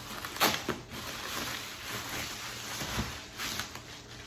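Plastic bubble wrap crinkling and rustling as it is handled and pulled open, with sharper crackles loudest about half a second in.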